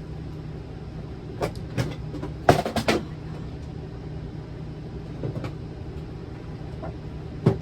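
Hard objects being handled and knocked about on a kitchen counter: scattered knocks and clicks, the loudest a quick clatter of several knocks about two and a half seconds in, with more knocks near the end, over a steady low hum.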